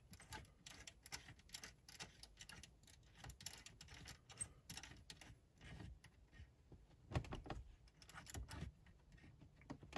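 Faint, irregular clicks and ticks of a small 3/32-inch Allen wrench turning the retaining screw of a car radio head unit, with a few sharper clicks about seven and eight and a half seconds in.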